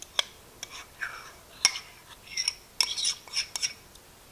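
Metal spoon scraping and clinking against a ceramic ramekin while scooping sour cream out into a mixing bowl: a string of short, sharp clicks and scrapes.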